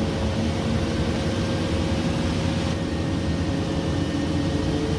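Airbus A340 cockpit noise during engine start: a steady hum of the airliner's air systems and spooling engines, with a few faint steady whining tones.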